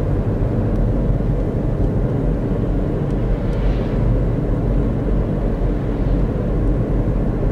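A car driving at road speed: a steady drone of engine and tyre noise.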